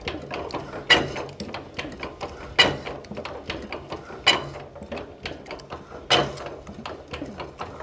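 Old diesel fuel injector for a D24-type engine being popped on a hand-lever injector tester. There are four sharp bursts, one about every second and a half to two seconds, one with each pump stroke, and lighter clicks between them. The crisp burst at each stroke comes with four even spray jets, the sound the mechanic takes as the sign of an injector set right.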